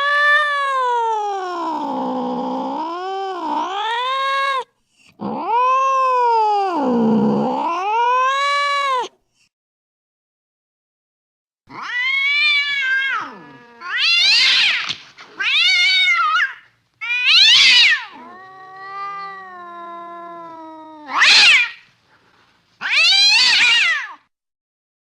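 Cat caterwauling: two long, wavering yowls of about four seconds each that rise and fall in pitch. After a pause of about two seconds comes a run of about six shorter, higher yowls and meows.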